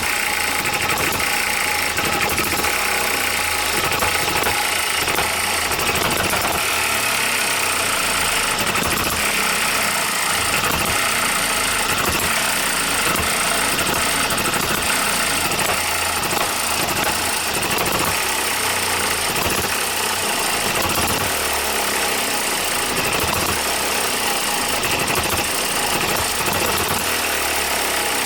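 A miniature OKMO Microcosm M92 hit-and-miss gas engine running steadily just after starting, its firing strokes a continuous fast clatter.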